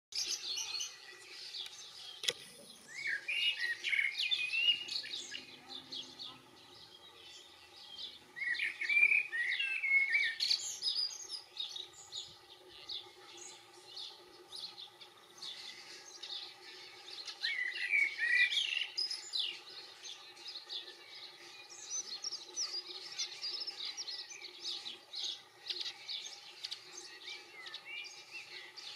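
European goldfinch twittering: quick runs of bright chirps and warbled notes, louder in three bursts and scattered between, over a faint steady hum.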